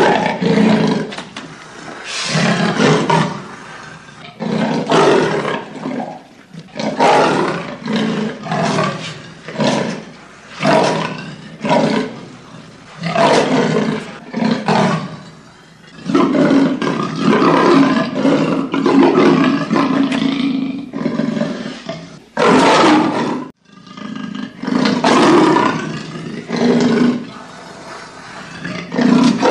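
Leopard roaring in a long series of rasping grunts, mostly about one a second, with a longer unbroken stretch of calling in the middle.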